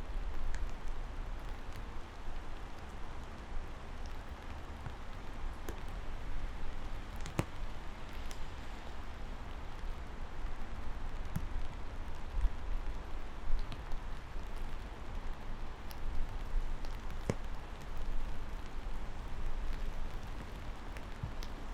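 Steady rain falling, an even hiss with scattered sharp drop hits and a low rumble underneath.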